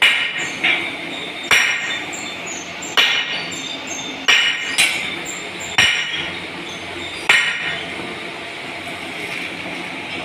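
Sharp metal-on-metal strikes, each with a short ring, from fitting the metal frame parts of a Ganga power loom together. There are about eight irregular blows in the first seven seconds, then only the steady background hum.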